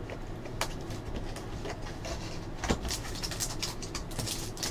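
A cardboard trading card hobby box being opened by hand: a few sharp knocks and taps of the box and lid, then a run of crackling and rustling of the packaging inside near the end.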